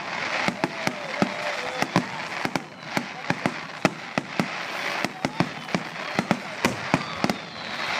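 Fireworks display: aerial shells bursting in rapid, irregular succession, many sharp bangs a second over a continuous crackling haze.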